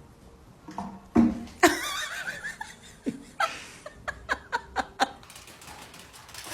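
A person laughing, with a run of quick short bursts past the middle.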